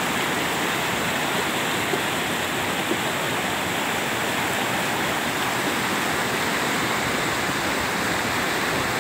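Brown floodwater of a river swollen by very heavy rain rushing over and around boulders in a rocky riverbed: a steady, unbroken rush of water. The speaker calls it a small flood.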